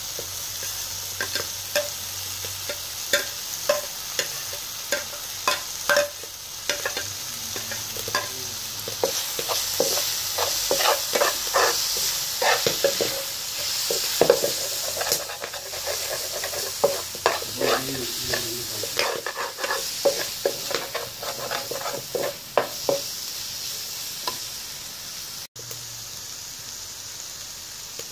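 Fish, tomato and garlic sizzling steadily in a frying pan while a spoon stirs them, scraping and clicking against the pan many times.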